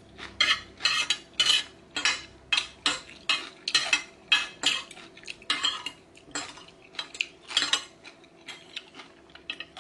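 Metal spoon and fork repeatedly scraping and clinking against a square glazed plate, two or three strokes a second, gathering the last scraps of food. The strokes thin out and get fainter near the end.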